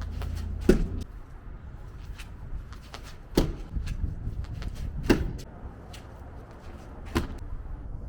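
Four heavy thuds about two seconds apart, each with a brief ring, over a low steady background rumble.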